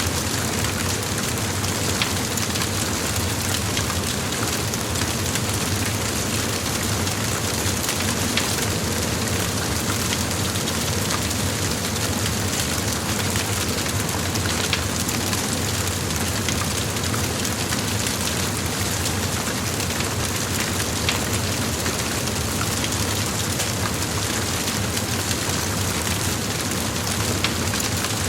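A large fire blazing: a steady roar of flames with scattered sharp crackles and pops.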